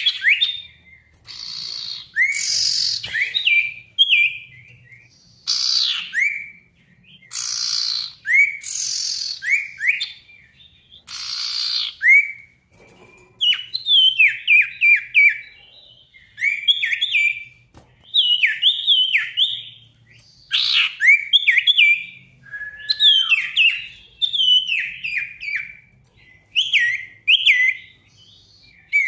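Sirtu songbird singing hard, the vigorous song bird-keepers call 'gacor': harsh rasping calls with sweeping notes for the first twelve seconds or so, then fast runs of short, descending whistled notes in phrases with short gaps.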